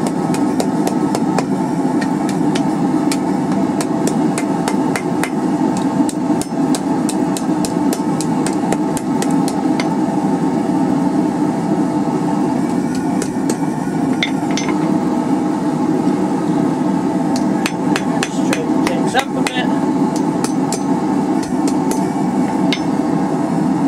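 Hand hammer striking hot wrought iron bars on a steel anvil in quick runs of blows, forging shut the gap between two bars laid side by side. The blows come fast for about ten seconds, thin out for several seconds, then pick up again near the end. A steady rushing noise runs underneath throughout.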